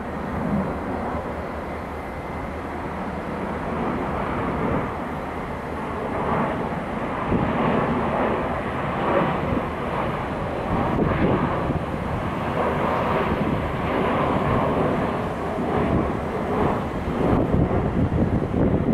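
Low, steady rumble of a steel railroad swing bridge's drive machinery turning the span closed, with wind gusting on the microphone.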